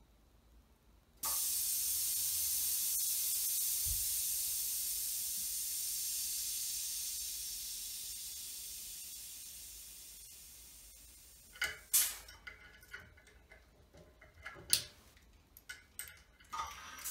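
Bal-Trol pneumatic balancer venting compressed air with a steady high hiss as it lowers a 75 lb load. The hiss starts suddenly about a second in and slowly fades away. Several sharp clicks and knocks follow near the end.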